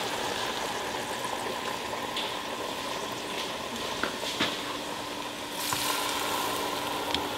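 Falafel balls deep-frying in hot oil in a small stainless steel saucepan: a steady sizzle, with a few light clicks about four seconds in and again near the end.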